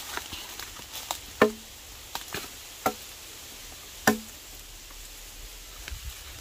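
Several sharp, irregular strikes. The three loudest fall about a second and a half apart and each rings briefly.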